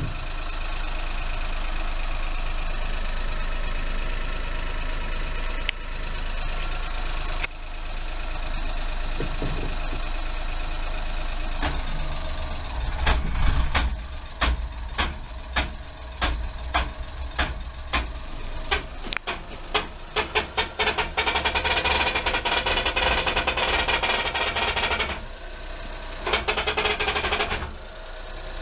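Honda Acty van (HH6) running. At first there is a steady engine sound, then from about twelve seconds in a series of sharp clicks, one or two a second, that come faster and run together into a rattle.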